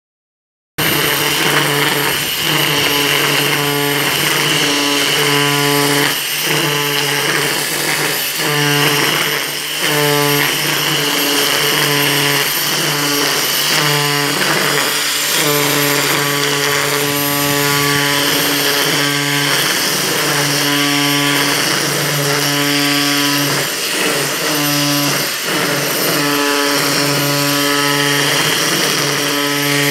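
Corded electric angle grinder converted into a pole-mounted grass cutter, running at full speed with a steady whine and hiss. It starts suddenly about a second in, and its pitch dips briefly every second or two as the spinning head cuts into the grass.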